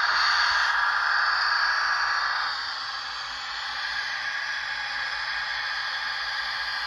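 Rapido Trains RDC-1 model rail car running along the track, giving a steady rushing noise with little bass. It is loudest as the car passes close and drops about two and a half seconds in as it moves away.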